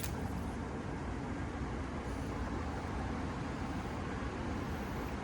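Steady rushing noise of a small stream's running water, with a short click right at the start.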